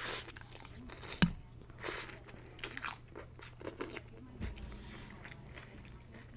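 Close-miked chewing and crunching of a mouthful of pho with fresh vegetables such as bean sprouts, in short crackly bursts. A sharp click a little over a second in is the loudest sound.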